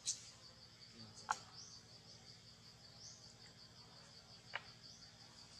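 Faint insect chirping in a fast steady pulse, about five pulses a second, with a few short rising sweeps. Three sharp clicks cut through it, one right at the start, a louder one about a second in, and one near the end.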